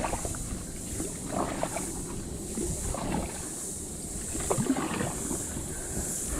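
Irregular wet splashes and squelches from wading and handling in mud and shallow water, over a steady high drone of insects that swells and fades about once a second.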